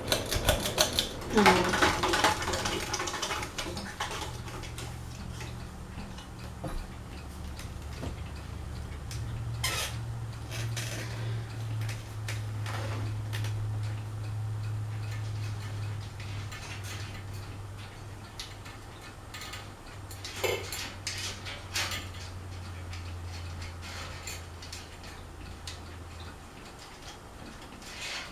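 Craftmade Phoenix ceiling fan running with a steady low motor hum that dies away near the end, with scattered light clinks and rattles throughout.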